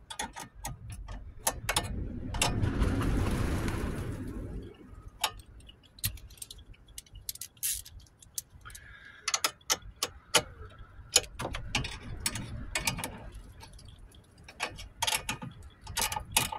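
Irregular plastic clicks and knocks of wiring-harness connectors and clips being handled and fitted, with a rustling scrape about two seconds in that lasts a couple of seconds.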